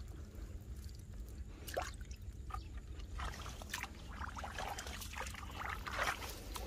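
Faint wet trickling and squelching of water and mud in a muddy rice field, with scattered small scrapes and clicks.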